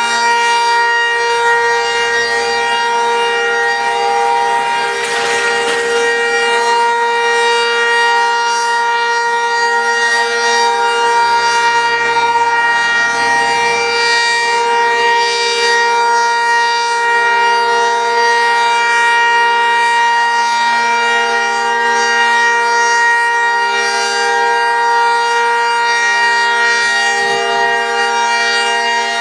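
Electromechanical outdoor tornado warning siren sounding one loud, steady tone whose pitch holds level throughout.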